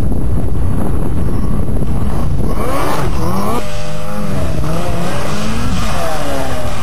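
Snowmobile engine revving hard as the sled approaches and launches off a jump. Its pitch rises and falls over and over from about two and a half seconds in, over a steady low wind rumble on the microphone.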